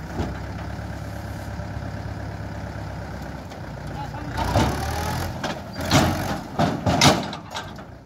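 Tractor diesel engine running steadily at low revs with a tipping trolley raised, then a few loud knocks and thuds in the second half.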